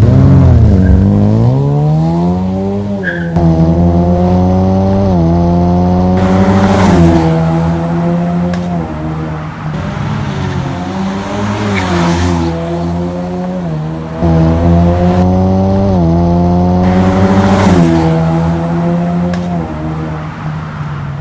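Ford Mustang 2.3 EcoBoost turbocharged four-cylinder running through an aftermarket exhaust. It is revved once standing, then accelerates hard through the gears, its pitch climbing and dropping back at each shift.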